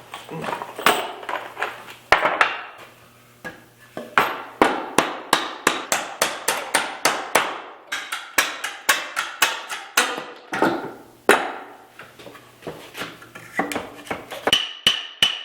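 Hammer driving nails into pallet wood and 2x4s: many sharp blows in quick runs of about four a second, with short pauses between runs.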